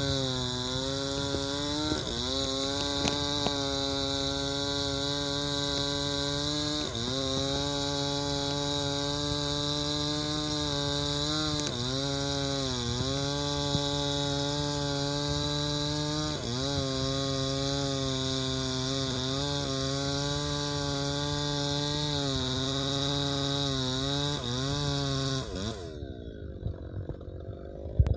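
Two-stroke chainsaw running at high revs while cutting into a mahogany tree, its pitch dipping and recovering several times as the chain takes load. About 25 seconds in the engine cuts off and winds down.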